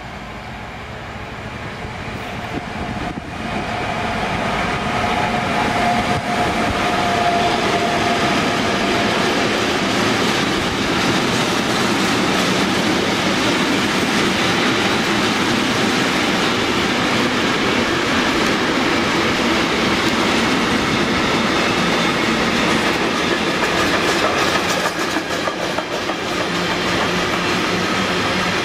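Container freight train hauled by an electric locomotive passing close by. It grows louder over the first few seconds, with a brief high whine as it draws level. Then comes the steady rumble and clatter of the container wagons' wheels on the rails.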